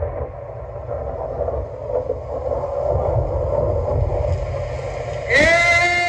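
Heavy, distorted bass played through a DJ sound system's speaker stacks during a sound check, a deep steady rumble. Near the end a high melodic line of music cuts in over it.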